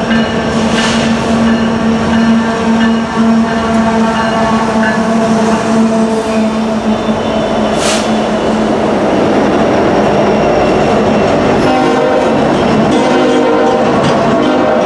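A freight train's horn sounds a steady chord for about the first six seconds as the train approaches. Its lead diesel locomotives then pass close by with loud engine and wheel noise.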